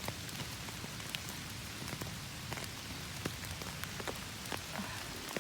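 Steady rain falling, with individual drops tapping sharply and irregularly on an umbrella overhead.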